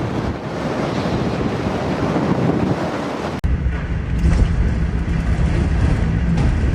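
Strong wind rushing and buffeting the microphone. An abrupt cut about three and a half seconds in leads into a second stretch with a heavier, deeper rumble.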